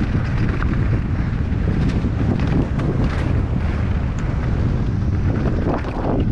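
Wind rushing over a helmet-mounted action camera's microphone as a mountain bike descends fast, with the tyres crunching and rattling over loose rock and gravel in scattered short clicks.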